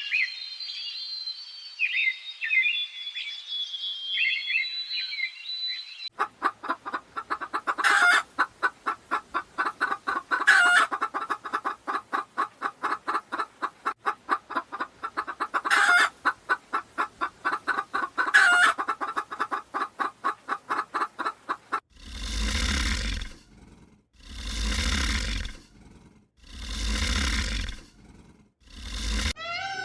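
Poultry clucking in a fast, steady run of about four to five clucks a second, with four louder calls standing out. Before the clucking, small birds chirp high-pitched for a few seconds. Near the end the clucking gives way to four broad whooshing bursts about two seconds apart.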